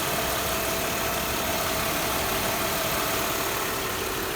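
2000 Mercedes E320's 3.2-litre V6 idling steadily on fresh oil, running smoothly with no shaking.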